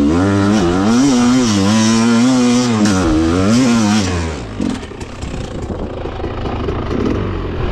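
Enduro motorcycle engine revving hard, its pitch swinging up and down about every half second as the throttle is worked, then falling away about four and a half seconds in to lower, rougher running.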